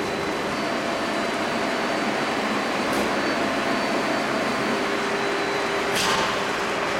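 CNC steel-sheet leveling and cut-to-length line running, a steady mechanical hum and hiss as sheet feeds through the roller leveler. A faint steady whine joins about two-thirds of the way through, and there is a light click near the end.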